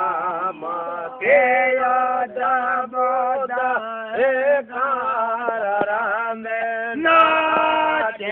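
A man singing a devotional chant in long, wavering held notes over a steady low drone.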